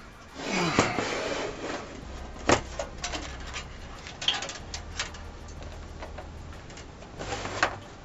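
Hands handling computer parts during PC assembly: a rustle and scrape in the first couple of seconds, then a scattering of sharp plastic and metal clicks and small knocks, the loudest about two and a half seconds in.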